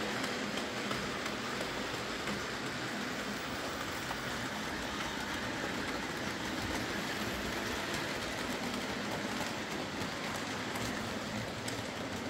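OO gauge model trains, among them a Hornby Class 56 diesel, running on a layout: a steady whir of small motors and wheels on the track, with faint clicks as the wheels pass over rail joints.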